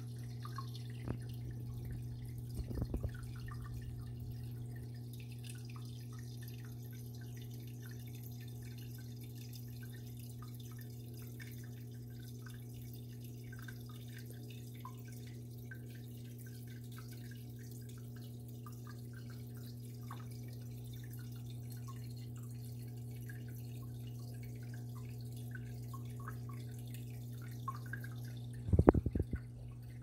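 Home aquarium running: water dripping and trickling, with many small irregular drips over a steady low hum from its pump. A couple of louder knocks come about three seconds in and again just before the end.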